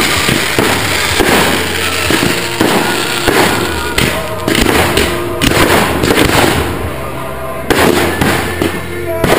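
Fireworks firing at close range: a rapid run of launches and bursts with crackling, dense and continuous throughout. Music plays underneath.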